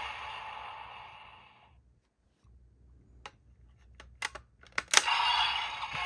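A Magnum Shooter 40X toy blaster's electronic sound effect fades out over the first two seconds. A few sharp plastic clicks follow as a raise buckle is swapped on the grip, and about five seconds in a loud click sets off the toy's electronic sound again.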